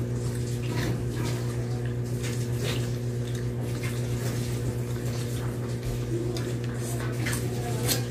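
Close mouth sounds of eating by hand: scattered wet lip smacks and chewing clicks as bits of fish are picked off and eaten, over a steady low hum that is the loudest thing throughout.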